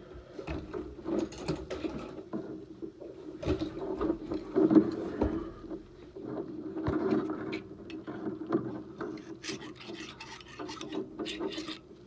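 Irregular scraping and rubbing from a metal furnace gas valve being handled, with scattered sharp clicks in the later part.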